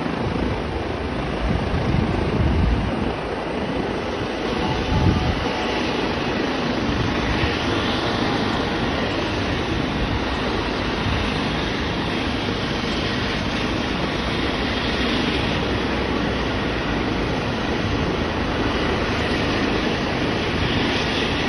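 Helicopter hovering low close by: a loud, steady rush of rotor and turbine noise with a fluctuating low rumble.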